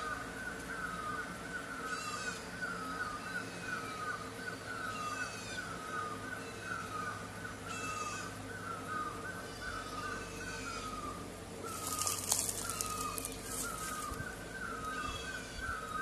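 Birds calling: one short two-note call repeats steadily about twice a second, with higher, falling trills every few seconds. A hissing burst lasting under two seconds breaks in about three quarters of the way through.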